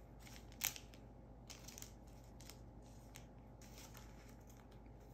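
Faint clicks and light scraping of trading cards being handled and laid on a stone countertop, with one sharper click a little over half a second in.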